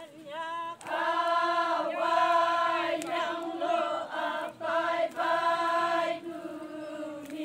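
A group of women singing a Naga folk song in chorus: short sung phrases over one note held steadily underneath.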